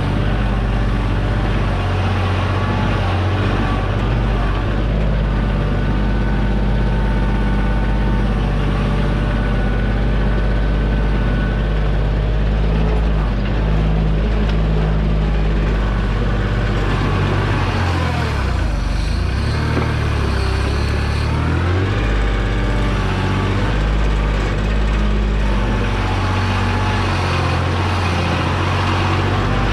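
Kioti tractor's diesel engine running steadily, working the backhoe. Its pitch dips and rises for a few seconds past the middle.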